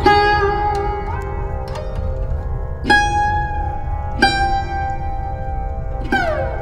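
Background music: a plucked string instrument plays slow, ringing single notes, some bent or slid in pitch, with a falling slide near the end, over a low steady drone.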